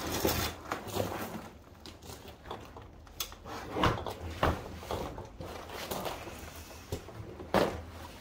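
A few light knocks and clicks, as of things being handled or set down, over a low steady hum. The clearest come about four seconds in, again half a second later, and near the end.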